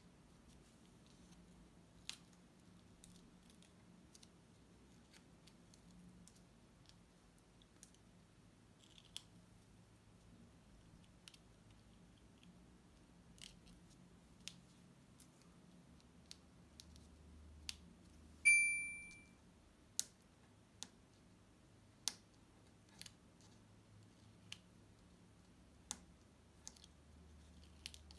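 Faint, scattered clicks and small snaps as pieces of paper backing are picked up with a pin and peeled off an adhesive sand-art board. About two-thirds of the way through comes one short ringing ding that fades within a second, the loudest sound.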